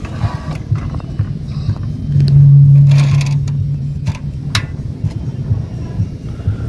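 Baide portable butane stove's ignition knob being turned, with sharp clicks from the piezo igniter as the burner is lit. A low rumble runs underneath, and a louder low hum lasts about two seconds midway.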